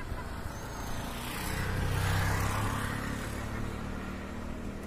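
An engine passing by: a low steady hum with road or water noise, swelling to its loudest about two seconds in and then fading.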